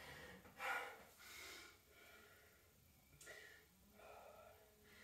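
A woman's heavy breathing as she recovers from a hard cardio interval: two louder breaths in the first second and a half, then fainter ones.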